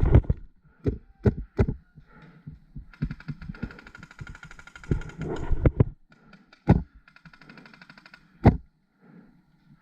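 Paintball markers firing in rapid full-auto strings, a dense run of evenly spaced shots in the middle and two shorter strings after it. Heavy dull thuds come and go throughout.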